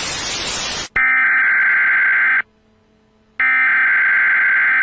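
A loud burst of TV-style static that cuts off about a second in, followed by a shrill electronic alert beep sounding twice, each about a second and a half long with a second's gap between: a mock emergency-broadcast interruption signal.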